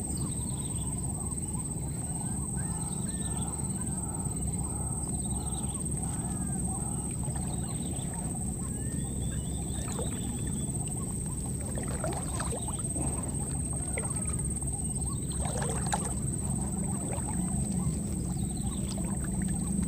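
Outdoor jungle-edge ambience: animal calls over a steady low rumble and a thin, steady high-pitched tone. A string of short calls repeats about twice a second for the first several seconds, and a couple of cries sweep downward from high to low past the middle.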